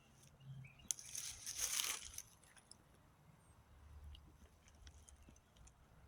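A brief close rustling crunch about a second in, lasting about a second, followed by faint scattered ticks and small rustles. A couple of faint short chirps sound at the very start.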